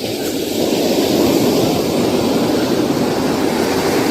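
A big sea wave breaking and washing up the beach in rough surf: a loud, even rush of water that builds over the first second and then holds.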